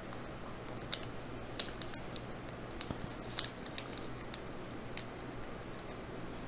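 Scattered small clicks and ticks from fingers handling and pressing pieces of polymer clay on crinkly patty paper, over a low steady hum.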